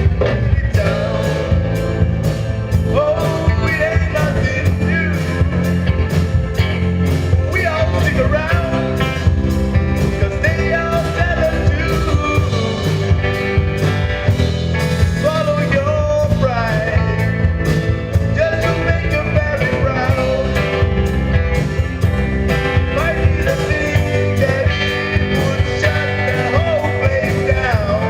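Rock or blues song with guitar, drums and a singing voice over a steady beat.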